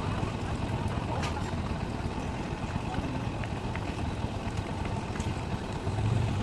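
A vehicle engine running steadily at a distance, a low drone with some outdoor noise, growing louder near the end.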